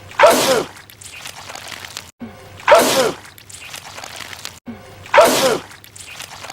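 A man sneezing loudly, the same sneeze heard three times about two and a half seconds apart. Each is a sudden burst with a falling voiced tone, and a brief gap in the audio comes just before each one.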